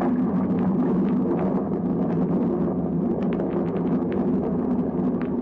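Radio-drama sound effect of a dynamite blast: a loud, steady rumbling roar, with scattered crackles from about halfway through.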